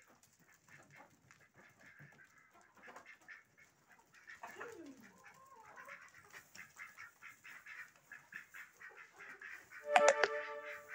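A flock of domestic chickens and ducks calling as it walks about: scattered clucks throughout, and a loud duck quack near the end.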